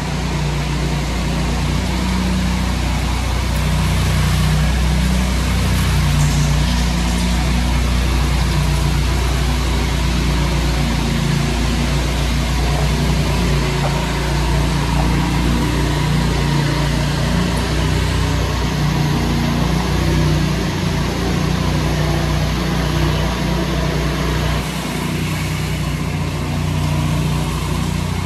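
Engines of a ride-on twin-rotor power trowel and a walk-behind power float running steadily as they power-float a fresh concrete floor; the low engine note eases slightly near the end.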